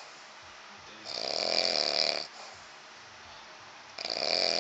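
A man snoring in his sleep: one long snore about a second in, and the next beginning near the end, about three seconds apart.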